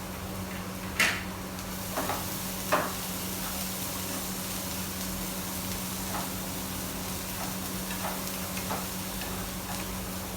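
Onions, garlic, ginger and green chili frying in oil in a pan, sizzling steadily while being stirred, with a utensil knocking against the pan three times in the first three seconds and lighter taps later.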